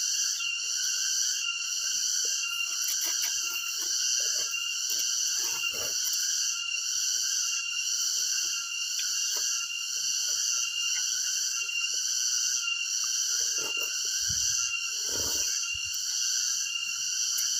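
Steady insect chorus: a high-pitched chirring with an even pulse, with a few soft clicks and knocks scattered through it.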